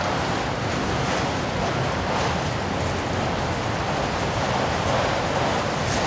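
Autorack freight cars rolling past at speed: a steady rushing rumble of steel wheels on the rails.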